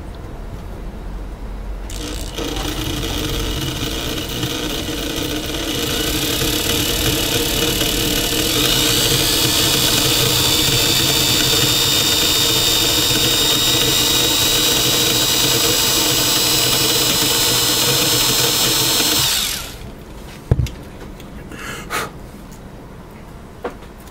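Small electric drill running while drilling a hole in a brass model ditch-light casting. It speeds up with a rising whine about eight seconds in, runs steadily, then stops suddenly near the end, followed by a few light clicks.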